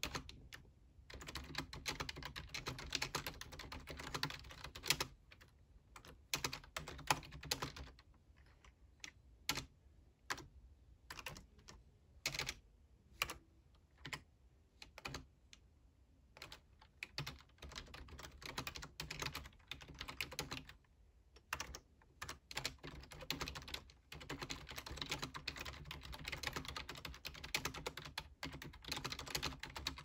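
Typing on a computer keyboard, a quick patter of key clicks. Steady typing at first, then slower, broken typing with short pauses, picking up to steady typing again for the last several seconds.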